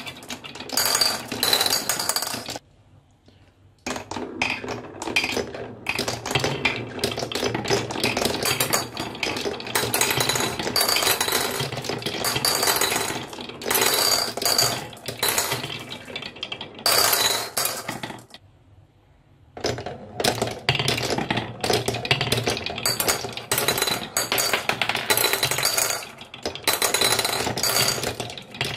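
Glass marbles rolling and clattering along the wooden tracks of a HABA marble run, rattling through the grooves and clinking against the wood and each other. The clatter breaks off into near silence twice, about three seconds in and again around eighteen seconds in.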